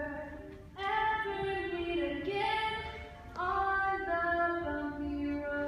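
Vocal ensemble singing sustained chords in two phrases, the first coming in about a second in and the second about three and a half seconds in.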